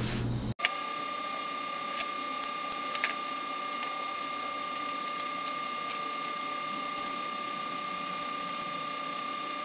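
A steady high-pitched whine, with a few light clicks about two, three and six seconds in.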